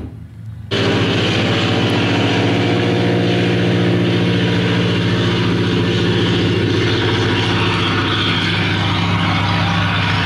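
Piston aircraft engine running steadily at an even speed. It breaks off for under a second at the start, then cuts back in abruptly.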